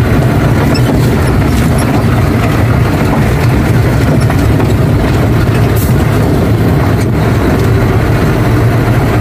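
Ashok Leyland truck's diesel engine running steadily, heard from inside the cab while the truck drives.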